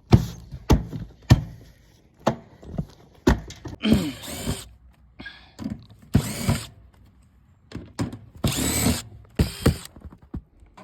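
Power drill run in several short bursts, each about half a second, among sharp knocks and clunks.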